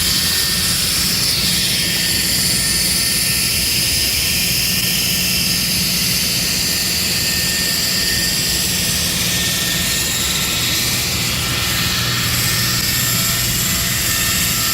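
Diamond drilling rig cutting into a rock ledge: a steady, loud machine drone with a high hiss and whine over a low hum.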